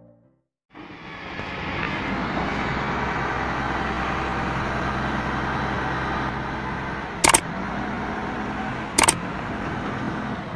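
Large diesel container-handling forklift running steadily, fading in about a second in, with two sharp knocks a second and a half or so apart in the second half.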